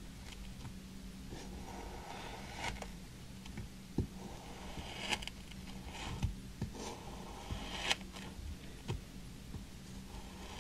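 Plastic knife slicing through molded kinetic sand: a series of short, soft, gritty scraping strokes, with a sharper tap of the blade about four seconds in.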